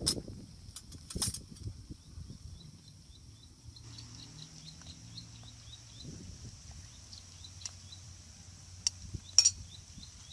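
A metal spoon clinking a few times against a small metal bowl while ingredients are mixed, the loudest clink near the end. A steady high insect buzz runs underneath, with faint repeated chirps from partway through.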